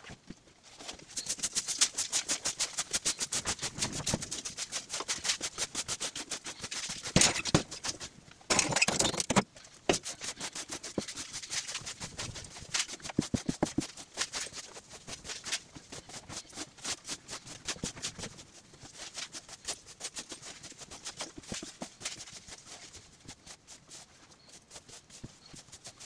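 Long-handled broom sweeping a packed-earth floor in quick repeated scratching strokes. It is louder in the first third, with one heavier scrape about nine seconds in, and lighter strokes after that.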